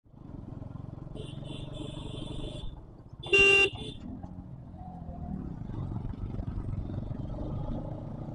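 Motorcycle engine running steadily under way, with a short, loud horn toot about three seconds in. A fainter, higher horn-like tone sounds on and off just before it.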